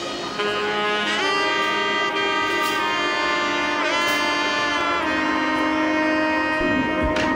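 Background music: a melody of long held notes that slide between pitches.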